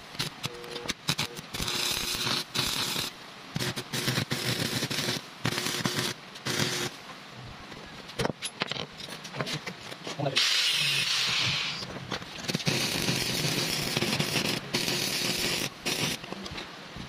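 Stick-welding arc on a sidecar's steel wheel spindle, crackling and sputtering. It comes in a run of bursts of a second or two each, every one breaking off as the arc is broken and then struck again.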